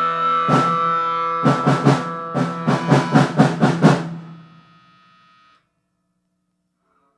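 A band ending a song: a guitar chord rings out while the drum kit hits a closing run of about a dozen sharp crashing strokes. Then everything fades to silence.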